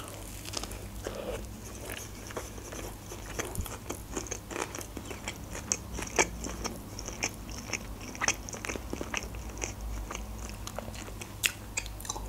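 A person biting into and chewing a burger with her mouth, a string of soft, irregular wet clicks and smacks.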